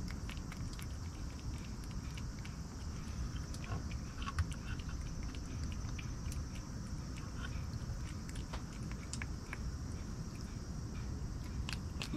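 A cat chewing and eating a treat close to the microphone: a scatter of small irregular clicks and smacks, over a steady low background rumble.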